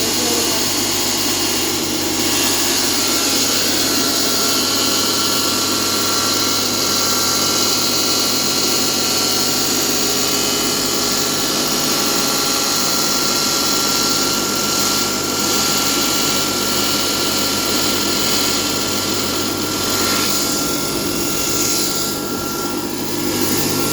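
Single-phase electric tile cutting machine running with its saw blade: a loud, steady mechanical noise over a hum, with a thin steady whine. Near the end the noise changes and dips slightly.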